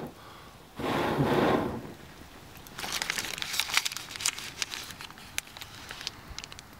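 Foil wrapper crinkling and crackling in the hands as it is peeled off a small block of butter, a dense run of sharp crinkles that thins out toward the end. About a second in there is a short, loud rustling burst.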